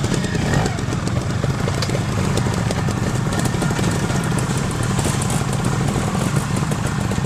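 Vintage trials motorcycle engine running at low, fairly steady revs as the bike rides away at walking pace.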